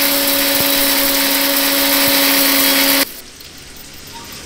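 Electric mixer grinder running, its blades grinding a dry batch of roasted dals and spices into powder, with a steady motor hum under the noise; it is switched off and stops abruptly about three seconds in.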